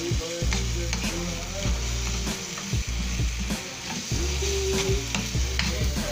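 Corned chicken sisig sizzling in a frying pan while a metal spatula stirs and scrapes through it, with frequent clicks and knocks of the spatula against the pan.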